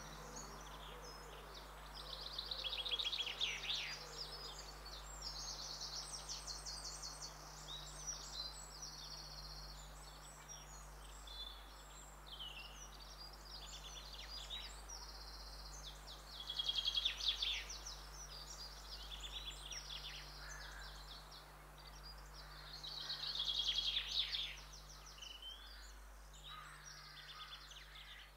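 Barn swallows twittering: a steady run of high chirps and quick buzzy trills, swelling to louder bursts about three, seventeen and twenty-four seconds in.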